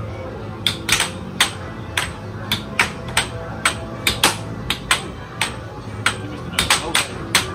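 Air hockey rally: the plastic puck cracking against the hand-held strikers and the table's side rails in quick, irregular sharp clacks, coming faster near the end, over a steady low hum.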